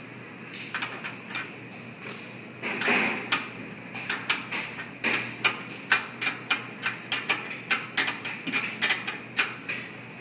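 Open-end wrench working on the gas inlet fittings of a gas chromatograph, a run of sharp metal clicks about three a second as the wrench is repeatedly repositioned on the nuts. A louder handling noise comes about three seconds in.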